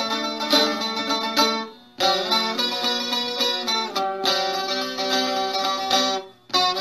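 Plucked string instrument playing an instrumental introduction melody in short phrases, breaking off briefly about two seconds in and again near the end.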